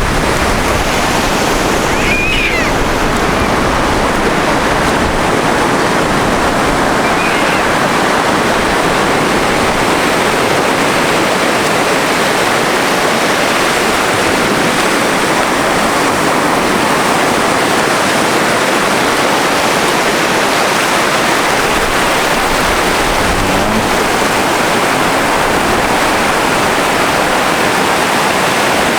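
Sea surf washing over a stony beach, a steady unbroken rush.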